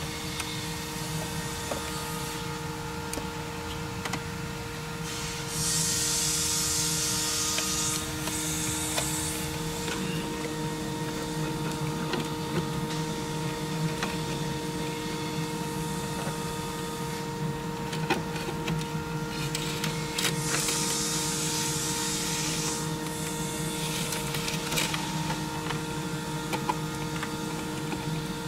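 A steady machine hum with several held tones, broken twice by a few seconds of hiss, with small clicks and rattles of wiring connectors being handled.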